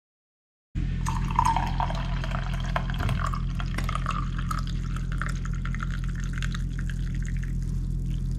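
Tea poured from a china teapot into a mug: a splashing stream that starts just under a second in, with a pitch that rises as the mug fills, and that stops near the end. A steady low hum runs underneath.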